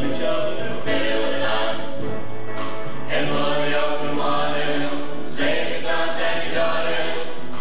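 High school chorus singing, with male voices at the front singing into handheld microphones.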